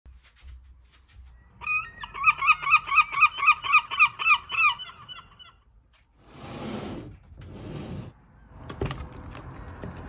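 A gull calling: a fast run of about a dozen loud, repeated yelping notes, roughly three a second, each note bending in pitch, that stops about halfway through. Two short bursts of scraping or rustling noise follow.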